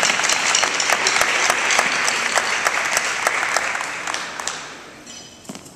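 Audience applauding, the clapping dying away over the last second or two.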